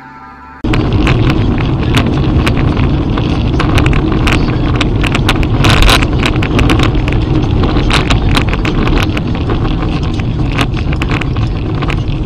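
Dashcam audio from inside a moving car: loud, steady road and wind rumble, thick with clicks and rattles. It starts abruptly about a second in.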